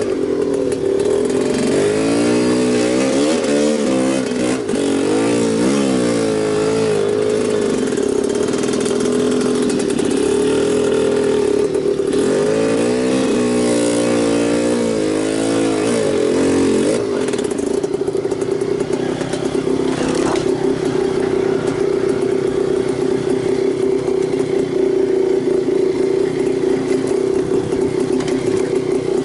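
Enduro motorcycle engine revving up and down repeatedly as the bike is ridden, then settling into a steadier drone for the last dozen seconds.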